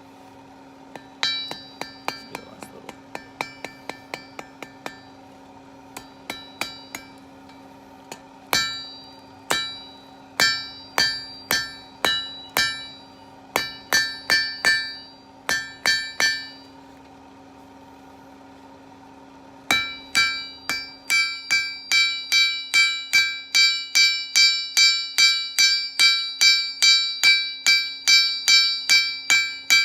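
Blacksmith's hammer striking steel on an anvil, each blow ringing. Scattered light taps come first, then a run of heavier blows, a pause of a few seconds, then steady hammering at about two to three blows a second, over a steady low hum.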